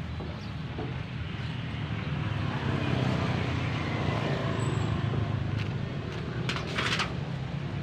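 Low, steady rumble of a motor vehicle engine that swells to its loudest midway and then eases off. A few short, sharp clicks come near the end.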